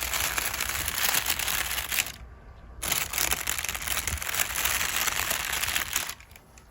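Makeup brush swept over crinkle paper, making a dense crackling rustle in two long passes with a short pause between them.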